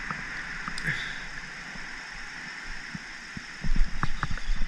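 Handling noise from a spinning rod and reel aboard a kayak: a few light clicks, then a run of short, louder knocks and rumbles near the end, over a steady hiss.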